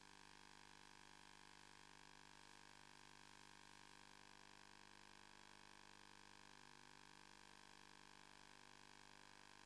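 Near silence: a faint, steady electrical hum and hiss, with no other sound.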